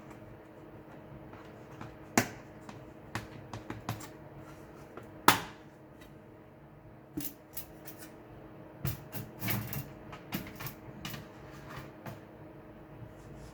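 Irregular sharp clicks and taps of small plastic and metal parts of an HP EliteBook G7 laptop being handled and worked apart during disassembly. The loudest come about two and five seconds in, and a quick run of them comes near the middle, over a steady low hum.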